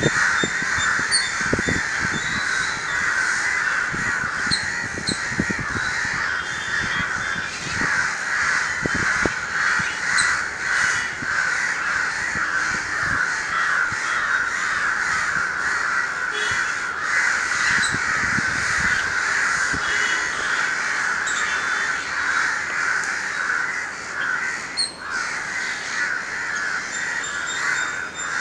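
Crows cawing over and over, the calls overlapping into a continuous chorus. These are the alarm caws crows give when mobbing a cat that is stalking one of them.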